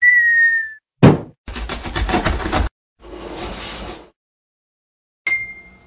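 Cartoon sound effects for an animated intro: a short whistle gliding slightly down, a thump about a second in, a rapid rattle, a hissing whoosh, and a bright ding near the end.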